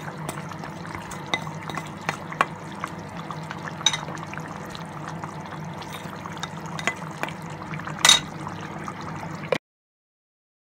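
A chicken and bottle gourd curry simmering in a pan, with small bubbling pops and crackles over a steady low hum. About eight seconds in there is one louder clink, and then the sound cuts off suddenly.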